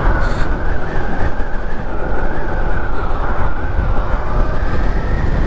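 Steady rushing wind noise and road rumble at speed on a Zero SR/S electric motorcycle, with no engine note; the sound stays even throughout.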